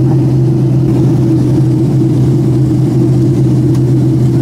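Steady drone of a jet airliner's engines and airflow heard inside the passenger cabin in flight: a constant low hum that does not change.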